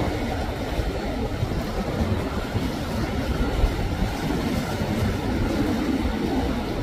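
Motorboats running through a choppy inlet: a steady low rumble of outboard engines mixed with the wash of water and waves.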